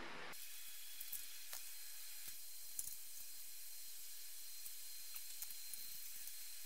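Steady hiss with a few faint, scattered metallic clicks and taps as an alternator is fitted to its engine bracket and its bolt turned with a socket wrench.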